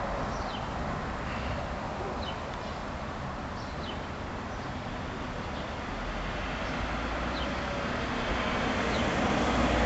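Outdoor ambience: a steady wash of noise with a low rumble that builds over the last few seconds, and several faint short bird chirps.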